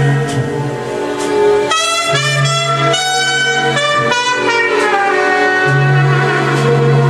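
Recorded jazz with a horn melody and saxophone, played back through Rogers LS3/5 15-ohm bookshelf loudspeakers driven by a Tandberg 3002A preamplifier and a Forte Audio Model 1 power amplifier. Long held melody notes sit over a steady bass line.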